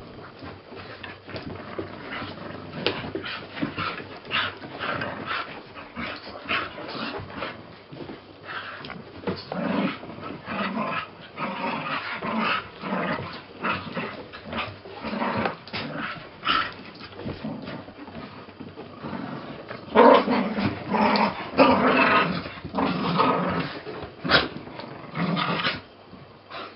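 Dogs growling and grumbling in play as a Cardigan Welsh Corgi and a mixed-breed dog wrestle, in short irregular bursts that grow loudest and busiest about twenty seconds in.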